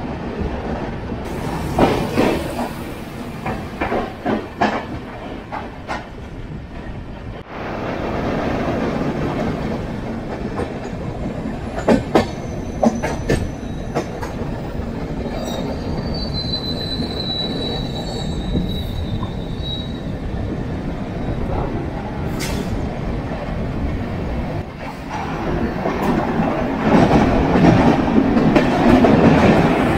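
Passenger express train running on the rails, heard from an open coach doorway, with clicks over the track, a thin high wheel squeal for a few seconds around the middle, and the noise growing louder near the end inside a tunnel.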